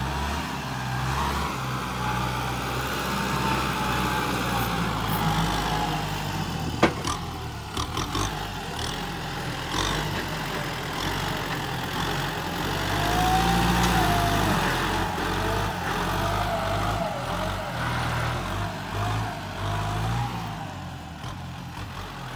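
Kubota M6240 SUH tractor's four-cylinder turbo diesel working under load while pushing and leveling soil, the engine note rising and falling with the load. A sharp click about seven seconds in.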